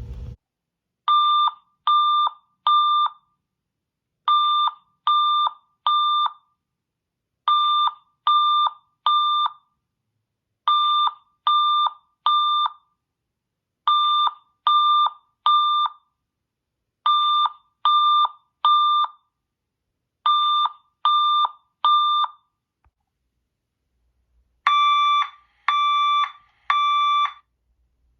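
Fire alarm speaker sounding the temporal-three evacuation tone: steady beeps in groups of three, each group about every three seconds, signalling a fire evacuation. The last group, near the end, sounds fuller, with a richer tone.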